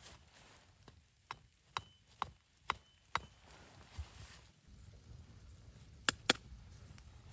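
A series of sharp knocks, about two a second, then two louder knocks in quick succession near the end.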